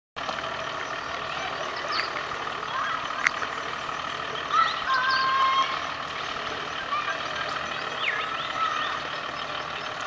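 Four-wheel drive's engine running at low speed as it creeps down the bank into a rocky river crossing. Short whistles and chirps come and go, with a sharp click about three seconds in.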